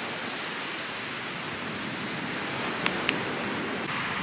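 Steady rushing noise of surf and wind on an open beach, with two short clicks close together about three seconds in.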